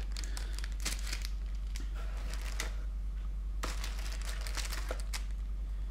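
Clear plastic parts bag crinkling as it is handled, in several short bouts, over a steady low hum.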